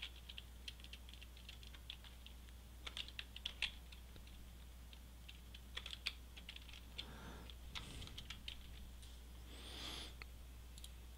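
Computer keyboard typing, faint, in short runs of keystrokes with pauses between.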